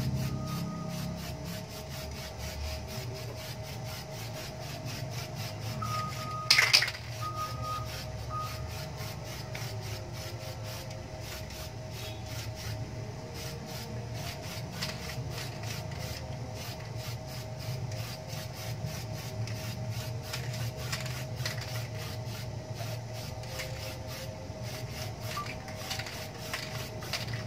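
Aerosol spray-paint can hissing in many short repeated bursts as a motorcycle muffler is spray-painted, over a steady low background hum. One loud, sharp knock comes about six and a half seconds in.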